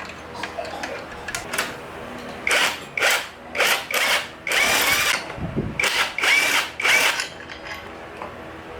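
Power drill run in about seven short bursts, its motor whining up and down with each trigger pull.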